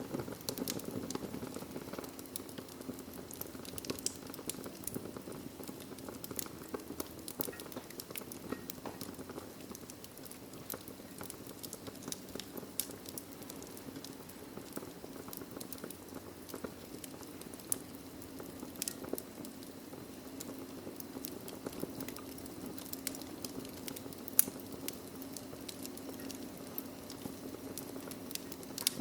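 Wood fire burning in a fireplace, with irregular sharp pops and crackles over a steady low rushing of the flames.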